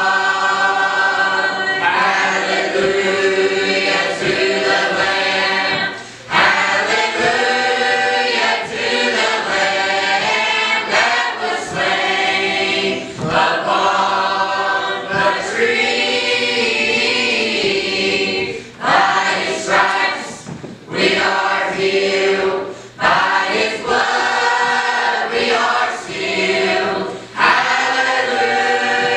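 Mixed church choir of men and women singing a gospel song together in full voice, with short breaks between phrases.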